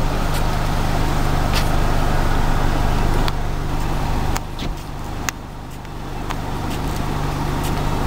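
Car running at a crawl with the window down: a steady low engine and road rumble that gets quieter about halfway through, with a few light clicks.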